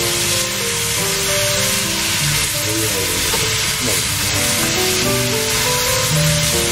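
Pork and vegetables sizzling as they stir-fry in a frying pan, turned with a metal turner, with a tune of background music playing over it.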